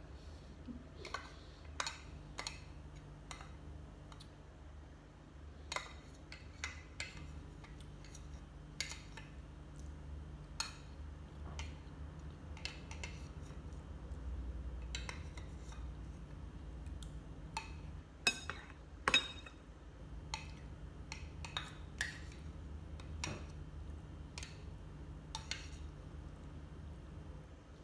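Metal spoon clinking and scraping against a small glass bowl in irregular light taps, with two sharper clinks a little past the middle, over a steady low hum.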